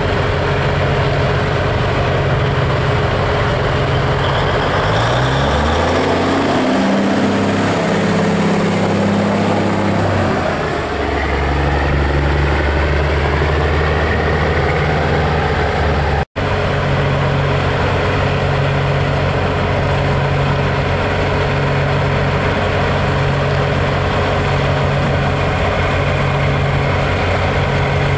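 Big-rig diesel engines running as semi trucks pull away and drive slowly past. Partway through, the engine pitch steps down and then climbs again; after a break about halfway, a steady engine note with an even pulsing about once a second.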